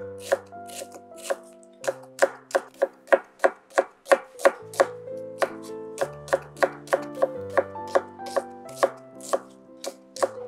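A kitchen knife chopping on a cutting board in quick, fairly even strokes, about three a second, over background music with held notes and a bass line.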